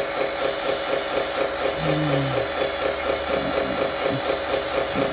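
DXR2 1/14-scale RC hydraulic dozer running with its hydraulics working as the blade is moved by remote: a steady mechanical hum from the hydraulic pump and drive.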